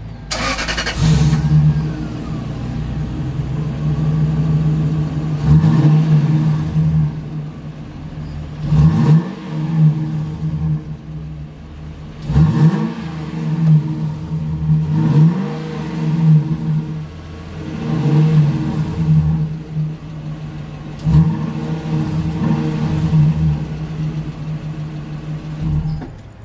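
Lexus LS400's 1UZ-FE V8 starting up right after a countdown and idling through a muffler-delete exhaust, its rear mufflers just cut off. It is revved in short throttle blips every two to three seconds, each a quick rise and fall in pitch over the steady idle.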